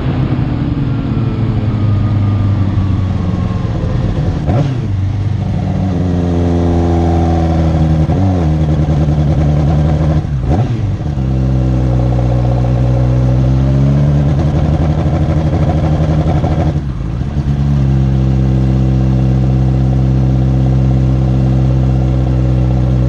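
Racing sidecar outfit's motorcycle engine running hard, heard from on board. The revs hold high and dip sharply three times before picking up again.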